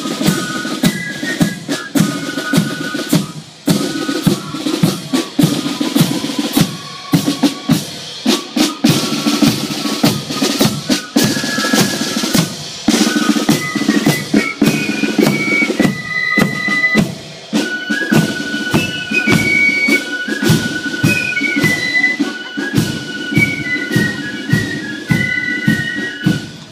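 A marching drum and flute corps (Spielmannszug) playing a march: snare drums and bass drum beat a steady, dense rhythm under a high flute melody.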